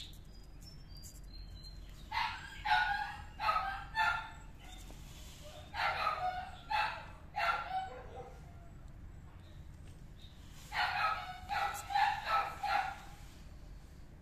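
Kitten meowing: short, insistent meows in quick runs of several, about two to three a second, in three bouts with pauses between.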